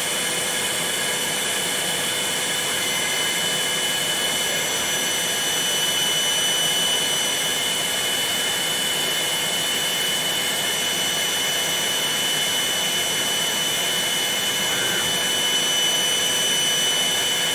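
Vacuum motor running steadily, a rushing hiss with a high whine, holding the workpiece down on the CNC mill's vacuum table.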